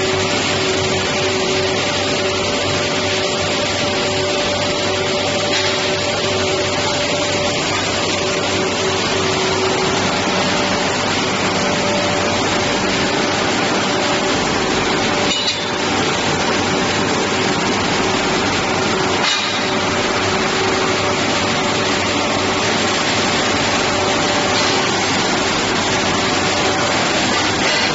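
Q698 roller-conveyor shot blasting machine running: a loud, steady rushing noise with two constant humming tones, briefly dipping twice midway.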